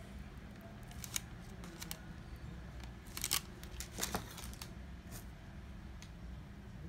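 Plastic piping bag crinkling in the hands as it is squeezed and handled, a few short crackles and clicks, the loudest a little past three seconds in and about four seconds in, over a low steady hum.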